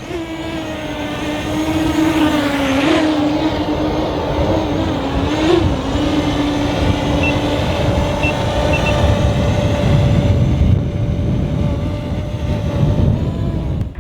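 SwellPro Spry waterproof quadcopter's motors and propellers whining steadily, the pitch briefly rising and dipping with throttle changes a few seconds in. The whine grows fainter after about seven seconds under a low rumble.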